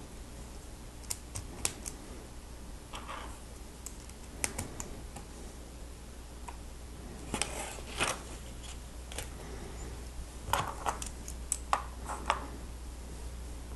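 Lego Technic plastic pieces being handled and pressed together: irregular sharp clicks and short clattery rattles, coming in clusters about halfway through and again near the end.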